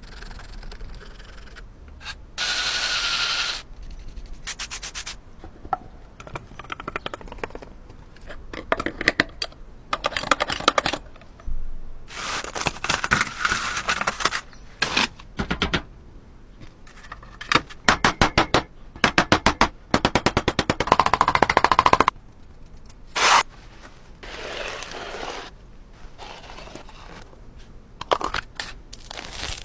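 Workshop noises from restoring rusty metal: repeated bursts of rapid rattling clicks, a steady mechanical whir lasting about a second near the start, and scraping in between.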